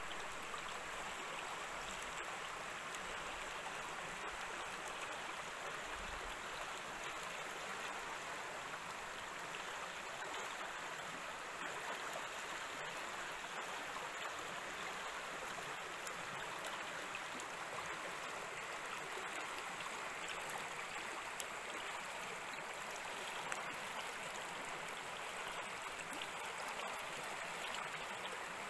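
Shallow woodland brook rippling over stones, a steady even rush of running water.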